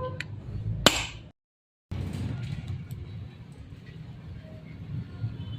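A single sharp hammer strike on metal about a second in, then an abrupt cut to low, steady workshop background noise.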